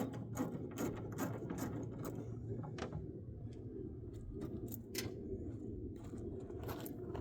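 Quarter-inch-drive socket ratchet clicking as a 10 mm bolt is backed out, a quick run of clicks for the first couple of seconds, then slower, scattered strokes, over a steady low hum.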